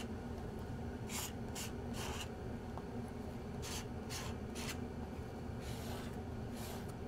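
Palette knife scraping acrylic paint across a palette in short strokes, three quick strokes about a second in and three more a little before the middle, with fainter ones later, over a steady low room hum.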